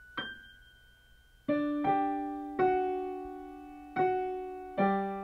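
Slow solo piano music: a single note rings out and fades, then after a pause a few unhurried chords follow, each left to die away.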